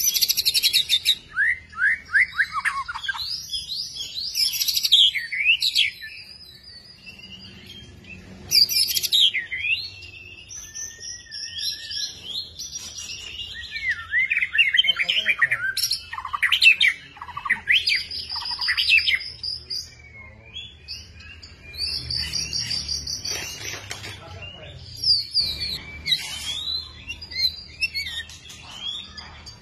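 White-rumped shama singing: a run of varied phrases of clear whistles sliding up and down in pitch, rapid trills and fast repeated notes, broken by short pauses.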